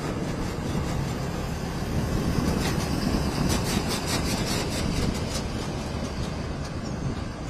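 Steady low rumble of distant aircraft engines, with a run of rapid clicks about three and a half seconds in.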